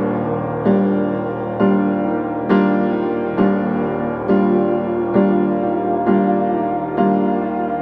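Slow, gentle piano music, with a new chord struck a little under once a second and left to ring.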